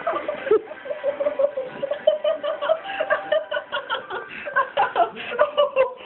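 A person being tickled, laughing hard in rapid, repeated bursts.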